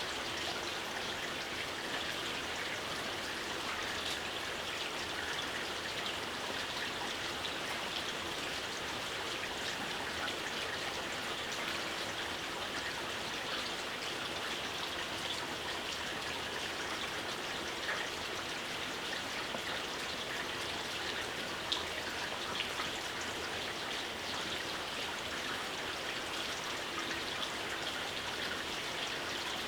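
Steady gentle rain: an even hiss of falling rain with many small drops pattering, and a few slightly louder single drops here and there.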